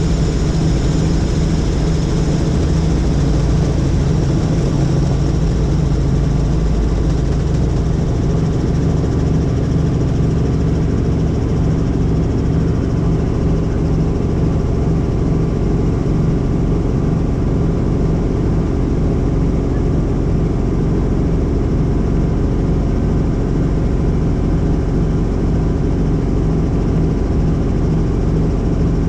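Helicopter in flight: steady engine and main-rotor noise, with a regular rotor beat pulsing through a low drone.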